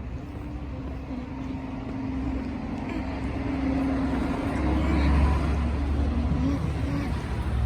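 A motor vehicle passing on the street: a deep engine rumble and hum that grow louder, peaking about five seconds in.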